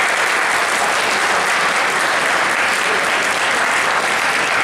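Audience applauding: a steady, dense wash of clapping.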